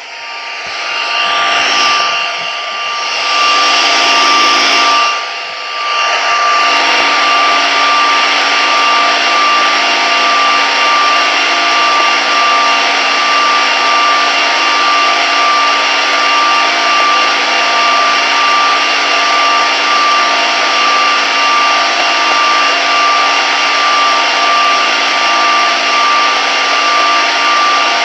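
Old radio set spitting static: a loud hiss that swells up and wavers over the first few seconds, dipping briefly about five seconds in, then settles into a steady hiss with a constant high whistle running through it.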